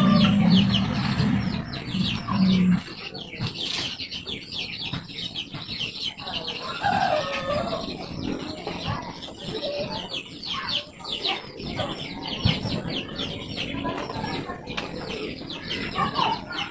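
Chickens clucking and calling, with many short high chirps throughout and a longer call about seven seconds in. A low steady hum sounds under them for the first three seconds, then stops.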